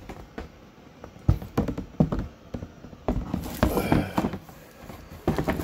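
Six-fold cardboard game board being unfolded and laid flat: irregular knocks, taps and rustles of the folded panels being handled.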